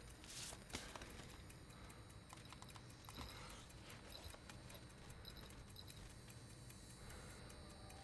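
Near silence: quiet room tone with a few faint clicks and a brief rustle of paper envelopes being handled about half a second in.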